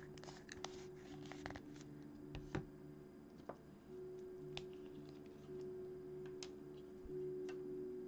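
Quiet background music of soft held chords that change every second or two, with scattered small clicks and taps, most of them in the first few seconds.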